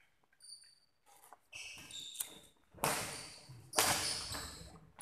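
Badminton doubles rally: shoes squeaking on the court floor, then two hard racket strikes on the shuttlecock about a second apart, the loudest sounds, about three seconds in.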